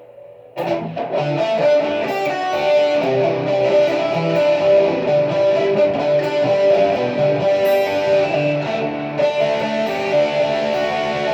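Jackson electric guitar fitted with DiMarzio Rainmaker and Dreamcatcher pickups, played through a distorted channel with the guitar's volume at half. It plays sustained distorted notes and chords, starting about half a second in.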